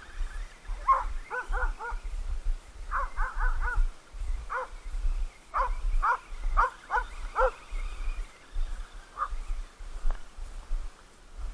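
Dogs barking at a radio-controlled car that they are chasing. The barks come in quick runs of three to five, with a last single bark about nine seconds in.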